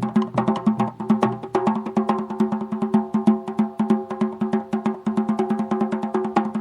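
Music: rapid, even tapping percussion, about ten strokes a second, over a steady low pitched note with its overtones.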